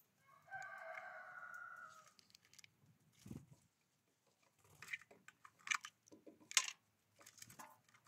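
A rooster crows once, held for about a second and a half. Then a scatter of sharp clicks and taps follows as small birds land and move about a wooden seed feeder.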